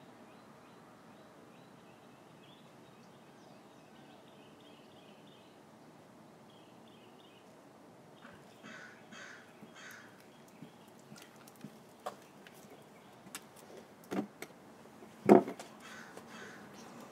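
A crow cawing several times in quick succession about halfway through, over faint outdoor background with light bird chirps. Near the end come a few knocks and one loud thump.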